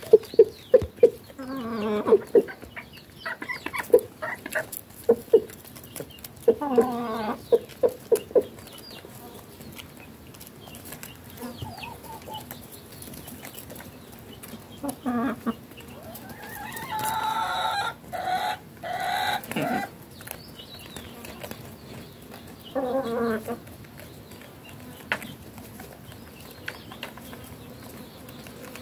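A flock of chickens clucking as they feed, with short calls now and then and a longer call in several parts about seventeen seconds in. In the first several seconds there are many sharp taps of beaks pecking at bread crumbs on the ground.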